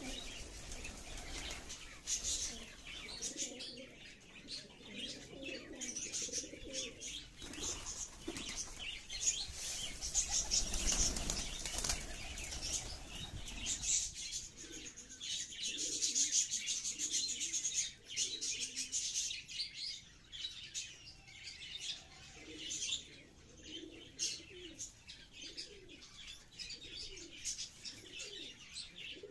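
A flock of domestic pigeons feeding on grain scattered on concrete: many quick ticks of beaks pecking, wing flaps, and low cooing that comes in and out, most steadily in the second half.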